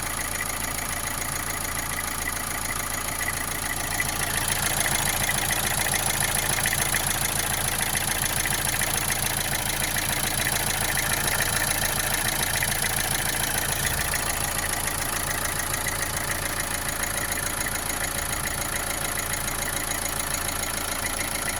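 Opel Astra J's 1.7 CDTI four-cylinder turbodiesel idling with a knocking sound and vibration that appeared after an oil change, the engine otherwise running well. The sound gets louder about four seconds in.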